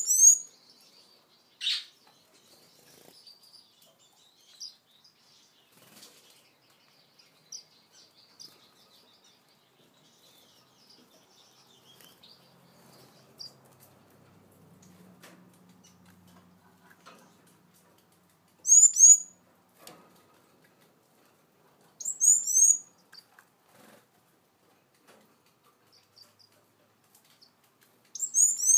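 Small caged finches calling in short bursts of rapid, high chirps, four times, with soft high peeps and wing flutters in between.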